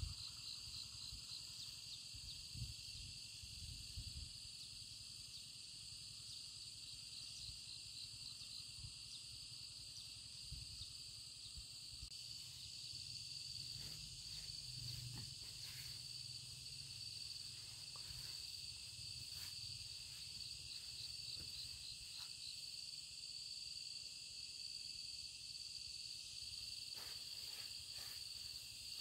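Field insects chirring steadily, with a higher, rapidly pulsed chirp that comes in and out several times.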